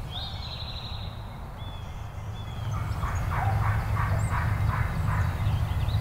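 Wild turkey yelping: a run of about seven evenly spaced yelps, roughly three a second, from about halfway in. A songbird's short high trill comes at the start, and a steady low rumble runs under everything.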